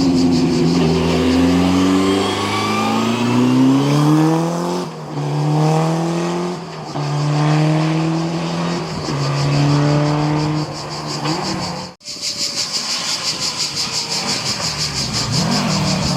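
Historic racing car engine accelerating hard, its pitch climbing and dropping back at each of four upshifts. About twelve seconds in, it cuts abruptly to a different engine sound that pulses rapidly.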